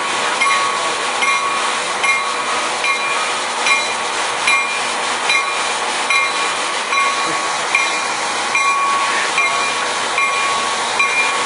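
Coaster commuter train's bell ringing steadily, a strike a little under every second, over the train's running noise as it starts to pull out after its air brakes release.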